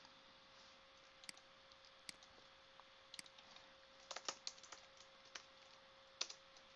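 Faint typing on a computer keyboard: a few separate key or mouse clicks, then a quick run of keystrokes about four seconds in, over a faint steady hum.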